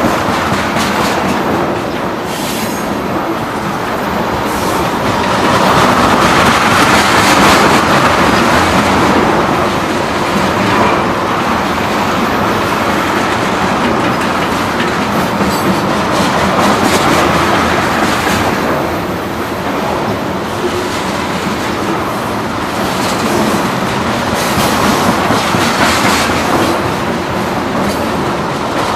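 Train running past close by, a continuous rumble of wheels on rail with rapid clicking over the rail joints, swelling louder several times as the cars go by.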